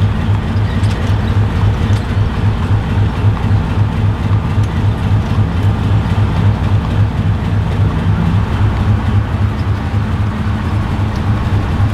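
Diesel-electric locomotive engine idling: a steady, pulsing low throb.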